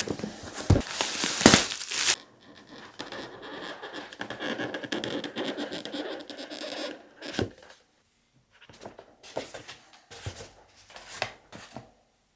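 Keyboard packaging being opened and handled: cardboard scraping and rustling, with a few knocks as the box and its parts are moved, loudest in the first two seconds.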